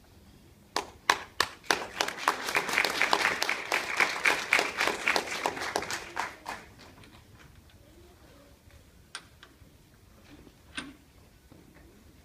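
Audience applauding: a few separate claps about a second in, swelling into full applause and dying away after about six seconds. Then quiet, with two short knocks.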